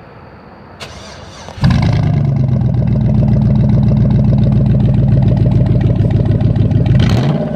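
A 2002 Chevrolet Silverado pickup's engine doing a cold start, heard from the exhaust at the rear. The starter cranks briefly, the engine catches about a second and a half in and settles into a loud, steady idle. There is a light touch of the throttle near the end.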